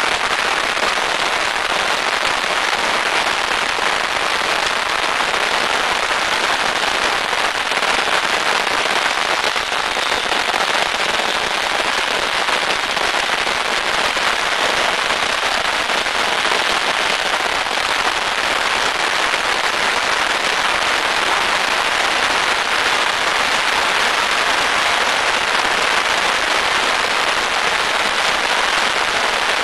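A beehive fireworks tower's main battery firing: thousands of bottle rockets launching and bursting at once, merging into one dense, unbroken crackle that holds steady with no pauses.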